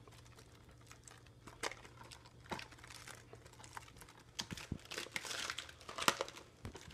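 Plastic shrink-wrap being torn and peeled off a Blu-ray case: crinkling with scattered crackles and clicks, sparse at first and busier in the second half.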